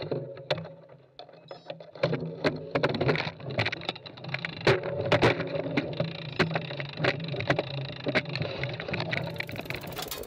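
Bicycle rolling slowly over a wooden plank bridge: irregular sharp knocks and rattles over a steady low hum.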